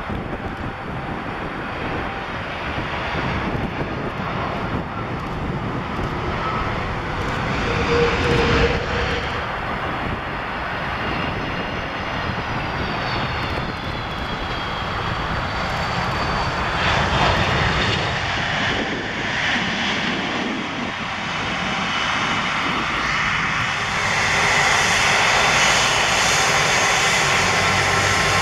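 Jet airliners' engines as planes land and roll down the runway: a continuous rumble that swells as each aircraft passes, with a brief gliding whine partway through. It grows louder and steadier near the end as a widebody twin-jet rolls close by.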